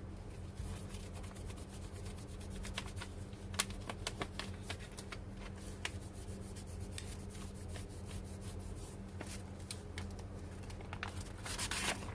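Scrubbing and rubbing on the plastic key panel of a Nakajima AX-150 electronic typewriter as it is cleaned, with many small scratches and clicks throughout. A denser burst of scrubbing comes near the end.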